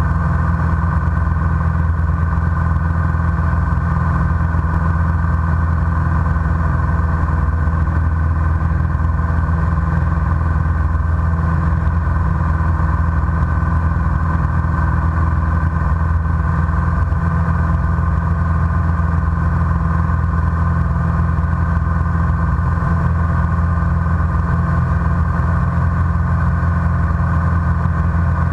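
Single-engine light aircraft's piston engine and propeller heard from inside the cockpit in cruise: a loud, steady, unchanging drone.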